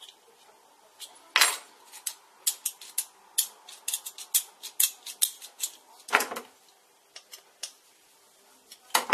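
Small aluminium parts and hand tools clicking and clinking against each other and the wooden bench top as a model interlocking-frame lever is assembled by hand. There are many quick irregular taps, with three heavier knocks: about one and a half seconds in, in the middle and at the end.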